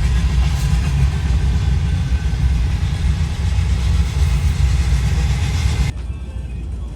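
Car interior noise while driving in heavy rain: a loud, steady low rumble of road and engine under a hiss of rain. It drops abruptly to a quieter level about six seconds in.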